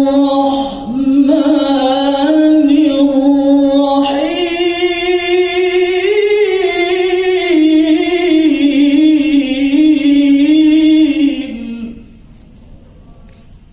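A male qari's voice chanting Quran recitation (tilawah), amplified through a microphone, in long melismatic held notes with slow ornamented turns. It steps up to a higher note about four seconds in, and the phrase ends about a second and a half before the close, leaving faint room sound.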